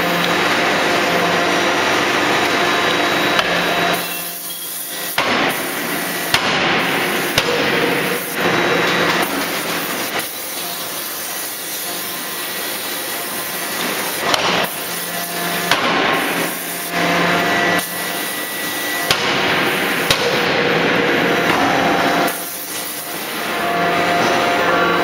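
3-ton hydraulic closed-die drop forging hammer striking hot steel in the die to forge flange forks: repeated sharp, heavy blows at irregular spacing over a steady machine hum and clatter.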